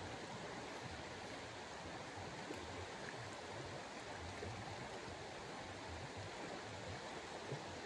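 Steady outdoor rushing noise with no distinct events, even across high and low pitches.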